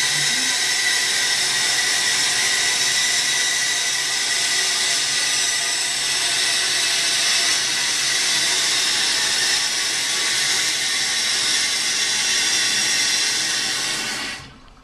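1973 American Standard Cadet toilet tank refilling: the fill valve hisses loudly with a steady whistling tone, too noisy, then shuts off suddenly near the end as the tank fills.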